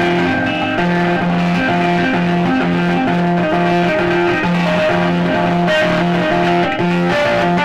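Electric guitar riff played live through an amplifier: a low note that repeats about twice a second, with higher notes moving over it.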